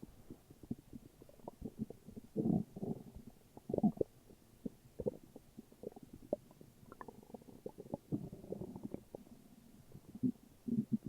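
Human stomach growling and gurgling in the morning: an irregular run of short bubbling pops and low rumbles, with louder bursts of gurgling about two and a half and four seconds in and again near the end.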